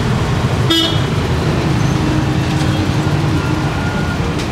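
Steady low rumble of street traffic, with a short high-pitched beep less than a second in.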